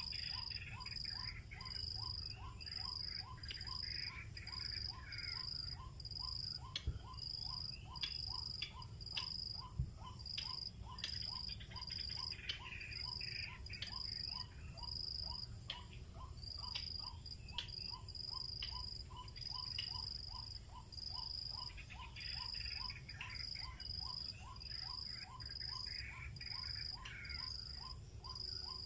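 White-breasted waterhen calls played from a recorded lure: a short, monotonous note repeated two or three times a second, broken now and then by stretches of busier chattering calls. Insects trill steadily in a pulsing high tone behind them.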